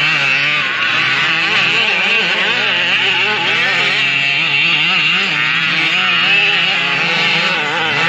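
Small two-stroke gas engines of 1/5-scale RC cars, a 34cc among them, buzzing as they race, their pitch rising and falling quickly as the throttle is blipped on and off.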